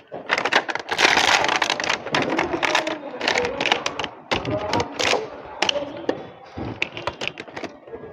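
Plastic containers, lids and a clear plastic food tray rattling, clicking and crinkling as they are rummaged out of a plastic basket and set down on tile, with a dense stretch of rustling plastic about a second in.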